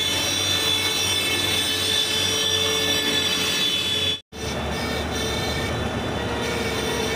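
Farmtrac diesel tractor engines running steadily as the tractors drive along the road. The sound cuts out completely for a moment just over four seconds in, then a tractor engine carries on running close by.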